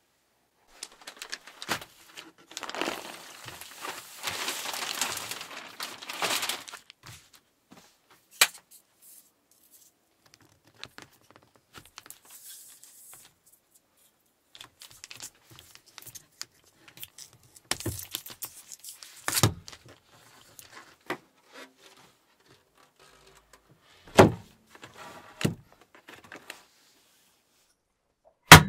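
Plastic stretch film crinkling and rustling as it is pulled off the roll and spread out, the longest stretch of rustling in the first few seconds and another bout later. Scattered taps and a few sharp knocks, the loudest just before the end.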